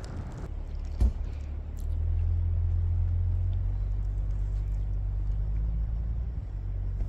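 GMC Sierra AT4 pickup's engine running with a steady low rumble from about two seconds in. A single sharp thump comes about a second in.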